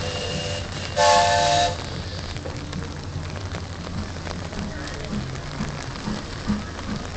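A steam locomotive's whistle gives a short faint toot at the start and a loud blast of under a second about a second in, several notes sounding together. Under it runs the steady low rumble of the moving train and the hiss of rain.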